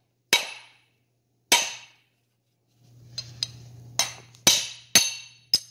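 Hammer blows on steel, driving a pressed-in wheel lug stud out of a Chevrolet K3500 front hub. There are six sharp ringing strikes: two spaced well apart, then four quicker ones about half a second apart near the end, as the stud works loose.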